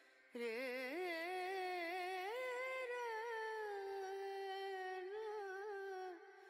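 Background music: a single voice humming one long, slow melodic phrase with a wavering vibrato. It starts about a third of a second in and stops shortly before the end.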